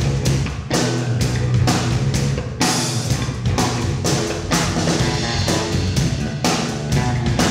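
Electric bass guitar and drum kit playing a rock groove together: held bass notes under a steady beat of drums and cymbals.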